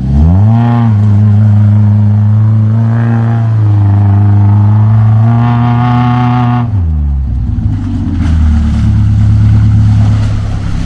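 Engine of a lifted off-road car revving hard while driving through deep mud. The revs climb sharply in the first second and are held high, dip briefly, climb again, then fall back about seven seconds in and run lower to the end.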